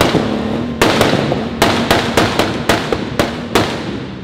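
BMW E46 coupe's exhaust firing a rapid string of loud pops and bangs, about ten in three and a half seconds, over the engine's running note.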